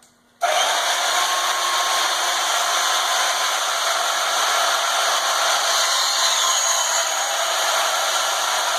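Bauer 10-amp portable band saw starting suddenly about half a second in, then running steadily as its blade cuts through a piece of scrap metal.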